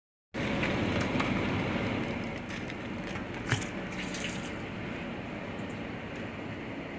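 Cooking oil poured in a thin stream from a plastic pouch into a large empty metal pot, splashing steadily onto the pot's bottom, over a steady background hiss. It starts after a brief moment of silence, with a short click about three and a half seconds in.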